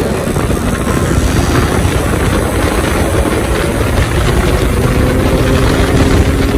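Yamaha RX135's single-cylinder two-stroke engine running loud through its exhaust, a steady buzzing note whose pitch climbs gently in the second half.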